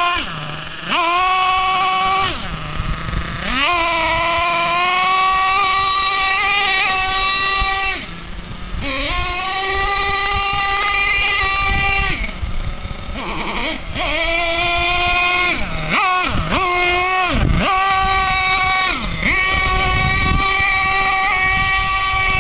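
Axial .32 RR1 nitro engine of a radio-controlled Monster GT truck, running at high revs in long full-throttle bursts. Every few seconds it drops briefly toward idle, then climbs back up as the throttle opens again.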